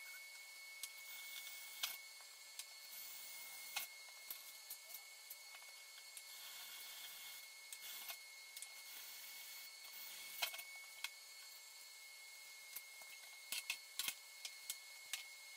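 Scattered light clicks and clanks of hand tools and small steel pieces being picked up and set down on a steel workbench, over a steady faint high-pitched hum.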